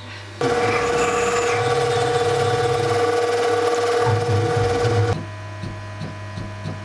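CNC mill spindle running with a steady whine while a spot drill cuts into a cast iron lathe backplate, with cutting noise under the tone. It starts abruptly about half a second in and cuts off about five seconds in, leaving a low mains hum.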